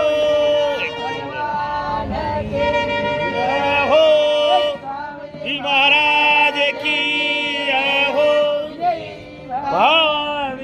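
Devotional music: a wind instrument plays a melody of long held notes joined by sliding bends, dipping briefly about halfway through and again near the end.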